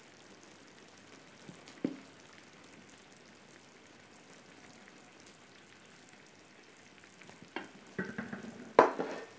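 Egusi soup simmering in a pan on the hob: a faint, steady sizzle. About two seconds in there is one short knock, and a few more near the end, the loudest a sharp knock, as the soup is served with a wooden spoon and the plate is handled.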